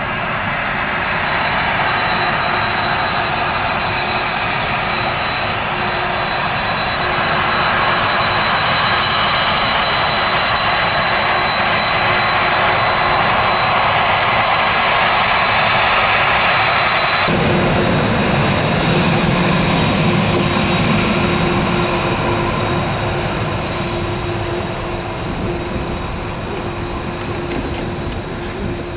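Boeing 747 jet engines running loud and steady, a rushing noise with a high whine held above it. About seventeen seconds in the sound changes abruptly to a deeper rumble with a higher-pitched whine, easing off slightly near the end.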